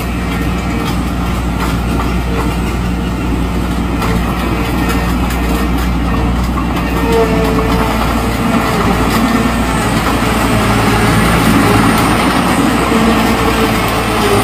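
Custom-built crawler tractor on steel tracks driving slowly, its engine running steadily under the clank and rattle of the tracks, getting gradually louder.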